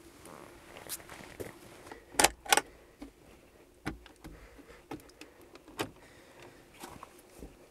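Handling knocks of wood against a log wall as a wooden window frame is fitted into a small opening: two sharp knocks close together about two seconds in, then a few lighter taps and clicks about a second apart.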